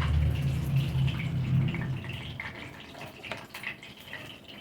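Chicken pakoras deep-frying in hot oil in a kadai, sizzling with scattered small crackles and pops. A low hum sits under it for the first two seconds, then fades.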